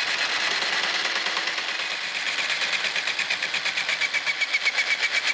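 Electric hand drill running a homemade crankcase cutter that is cutting aluminum from a 1E40QMB-type two-stroke scooter crankcase. About two seconds in, a fast rhythmic chatter with a high whine sets in as the cutter bites.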